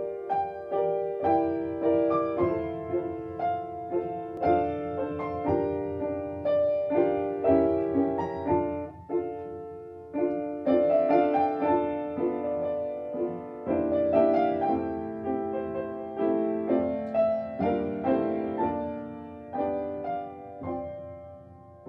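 Solo piano music, a stream of single notes and chords struck one after another and left to ring, growing softer near the end.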